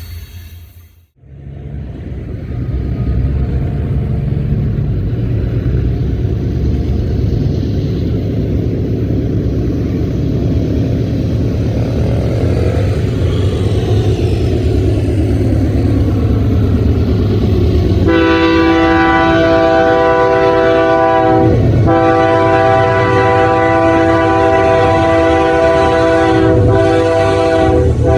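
Diesel freight locomotive approaching with a steady low engine rumble that grows louder. About two-thirds of the way in its multi-chime air horn starts sounding several notes at once and holds, with two short breaks.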